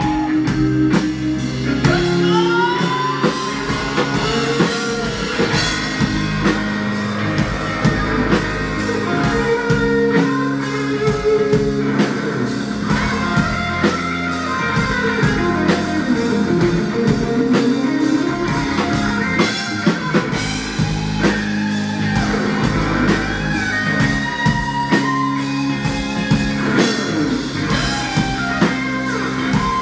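Live rock band playing an electric guitar solo with sliding, bent notes over a steady drum kit.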